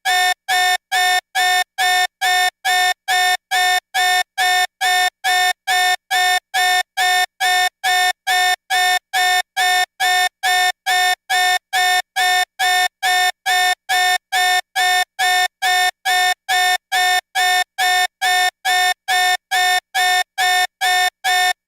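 Electronic alarm beeping steadily, about two beeps a second, each beep the same pitch.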